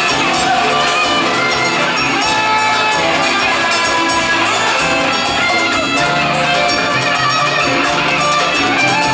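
A live band playing a continuous piece of music, with electric guitar and drums.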